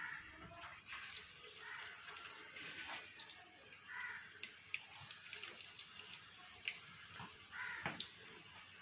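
Breaded chicken cutlets shallow-frying in hot oil in a pan: a steady sizzle with scattered sharp pops and crackles.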